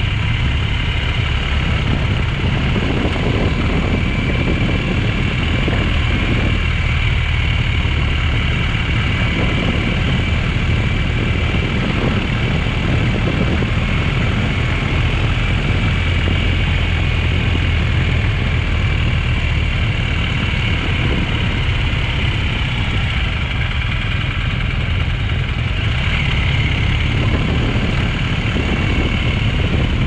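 BMW GS adventure motorcycle engine running steadily while riding, picked up by a mount on the bike, mixed with wind rush and tyre noise from the dirt road.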